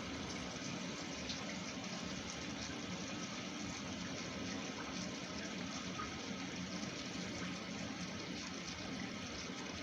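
Steady rush of running water, unchanging in level throughout.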